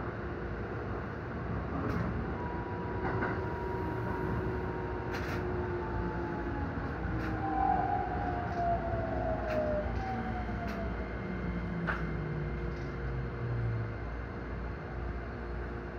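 Keikyu 1000-series electric train's traction motors whining down in pitch as it brakes to a stop, the falling whine fading out about two seconds before the end, with scattered sharp clicks from the wheels and running gear over a steady hum.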